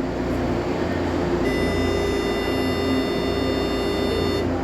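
A Frota J metro train's steady hum. From about one and a half seconds in, a steady pitched warning tone sounds for about three seconds, the signal that the doors are about to close.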